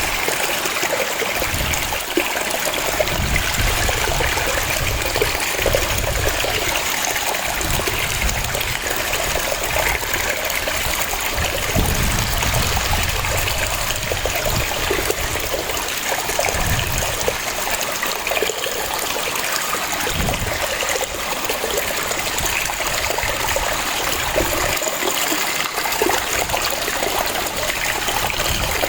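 A waterfall: water falling and splashing in a steady rush, with an uneven low rumble underneath.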